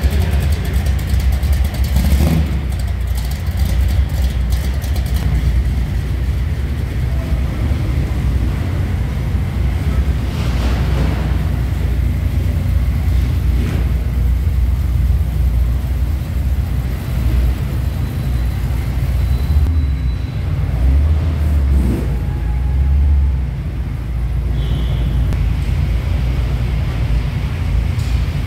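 Engines of show cars rumbling low and steady as they drive slowly past one after another: a black late-1950s Ford Thunderbird, then a maroon mid-1950s Chevrolet pickup, and near the end a Volkswagen split-window bus.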